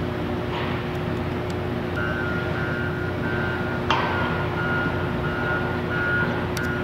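Heavy construction machinery running with a steady engine drone. A backup warning beeper starts repeating about two seconds in, and there is a single sharp clank near the four-second mark.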